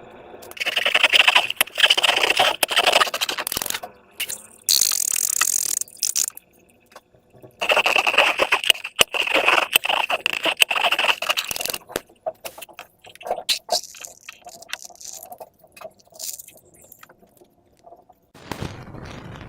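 Slime being worked by hand with balloons, making crackling, scraping handling noise in two long bursts, with a short hiss about five seconds in and scattered clicks after.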